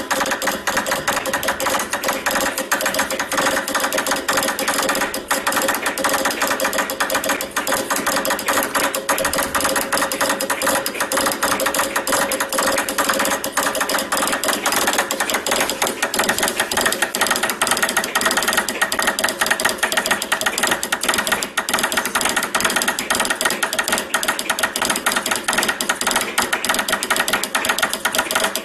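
Telegraph straight key being worked by hand at high speed, its contacts clicking in a fast, unbroken stream as Morse code is sent.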